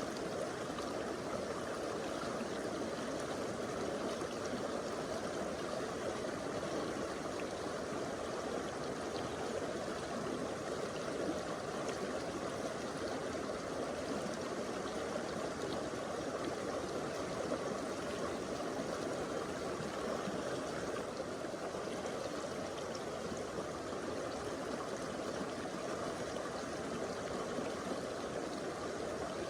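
Stream water flowing and gurgling over rocks, a steady rushing sound.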